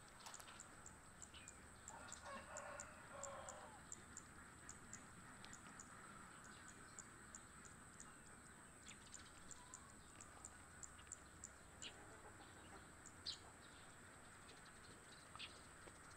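Faint outdoor ambience with a distant domestic chicken calling, clearest in one call lasting a second or two, about two to four seconds in, over scattered faint high ticks.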